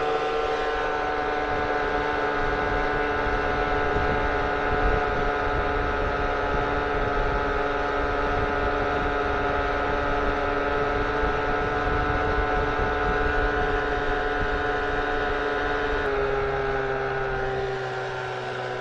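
Old Johnson outboard motor running steadily, pushing a small boat along; about sixteen seconds in its pitch drops a little as it eases off.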